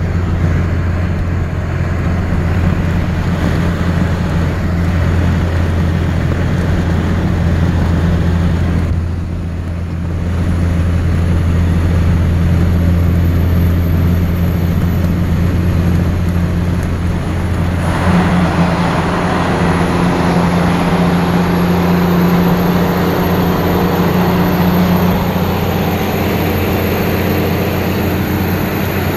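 A 2nd-gen Dodge Ram's 24-valve Cummins 5.9 L inline-six turbo diesel is pulling under heavy load, about 20,000 lb gross, at highway speed. It makes a steady low drone, and a high turbo whistle rises and falls over it. The level dips briefly about a third of the way in, and a little past halfway the engine and tyre noise gets louder and fuller as the truck drives into a tunnel.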